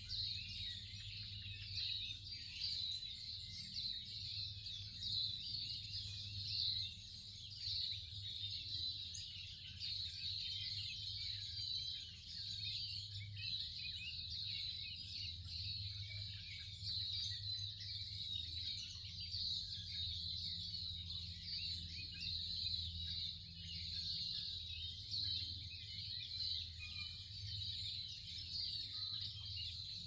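A dense chorus of many birds chirping and singing, over a low steady hum.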